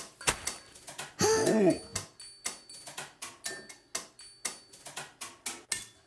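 Quick, evenly spaced ticking clicks, about four a second, with a short swooping, whistle-like glide that rises and falls about a second in.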